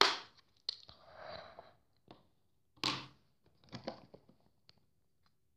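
Makeup items being handled and rummaged through: a few scattered soft clicks and short rustles.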